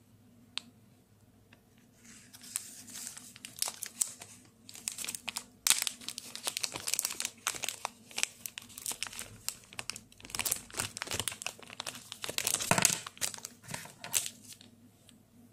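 Thin plastic packaging bag crinkling and crackling as it is handled and opened by hand, in an irregular run of rustles that starts about two seconds in, is loudest near the end, then stops.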